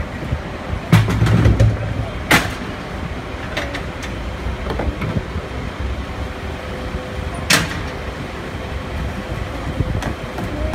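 Heavy vehicles idling with a steady hum, broken by three sharp clunks as a street litter bin and its plastic liner are handled: about a second in, a second later, and past the middle.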